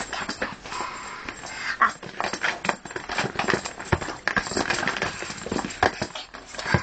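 Irregular knocks, thumps and rustling from a small child dancing and moving about right by the phone.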